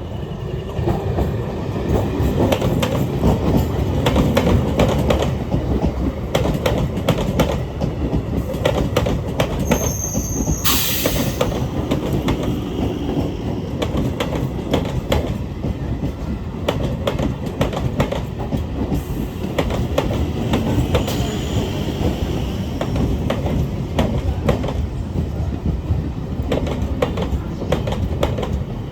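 Electric multiple unit (EMU) train running past at speed: a steady rumble with rapid clicking of wheels over rail joints. About ten seconds in, a brief high squeal gives way to a sharp hissing burst lasting about a second. Faint wheel squeals come later.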